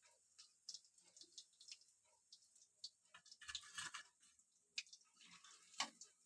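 Faint clicks and scrapes of a steel slotted spoon against a steel kadhai and plate as fried cauliflower pakoras are lifted out, with a short rustling clatter about three and a half seconds in as they are tipped onto the plate, and a sharp click near the end.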